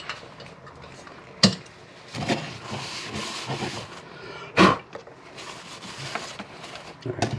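A coffee grinder being cleaned out by hand: a sharp knock, a couple of seconds of rough rubbing noise, a second loud knock, then a few small clicks near the end. The grinder's motor is not running.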